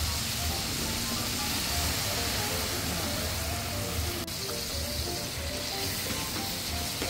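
Sliced chicken sizzling steadily in a wok, with white wine just added to the pan. Light background music with a soft beat plays over it.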